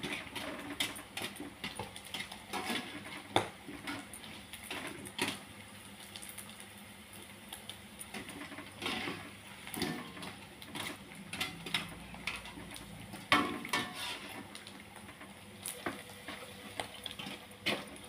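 Rengginang (sticky-rice crackers) frying in hot oil in a wok with a steady low sizzle, while a perforated metal skimmer clinks and scrapes against the wok at irregular moments as it presses and turns the crackers.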